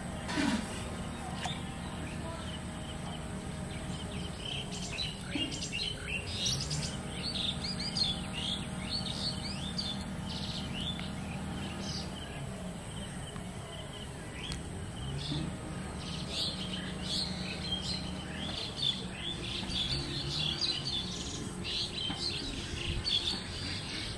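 Birds chirping and calling, many short high chirps in quick, irregular runs throughout, over a steady thin high-pitched tone.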